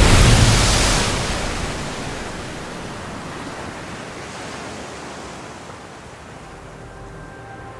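Sea surf washing on a beach, loud at first and fading over about two seconds to a soft, steady hiss.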